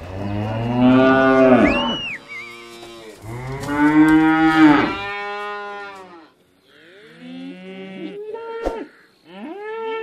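Cows mooing: two long, loud moos in the first half, then several shorter, quieter moos.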